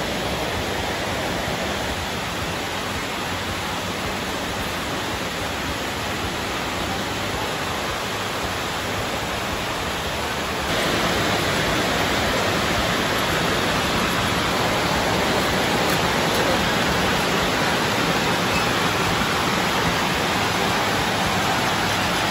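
Steady rushing noise, like heavy rain or a large fan, that steps up louder about eleven seconds in.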